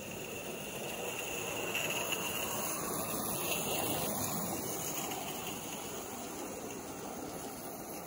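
Small live-steam locomotive hauling a log train: a steady hissing, rushing noise that swells over the first few seconds and then eases off.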